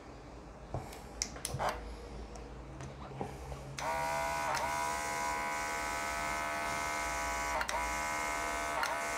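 Portable mini airbrush compressor running with a steady high-pitched motor whine and air hiss through the airbrush, starting about four seconds in after a few faint clicks, with brief dips three times. The reviewer judges it to be giving very poor pressure.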